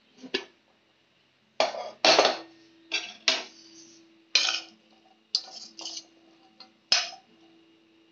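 Metal ladle knocking against a steel pressure cooker pot of cooked chickpeas: about ten sharp clanks at uneven intervals, each leaving a short metallic ring.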